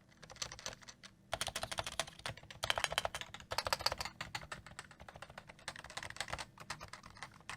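Fast typing on a stock, unmodified Cooler Master CM Storm NovaTouch keyboard with Topre electrocapacitive switches: dense runs of keystrokes, with a short pause about a second in and a few briefer breaks.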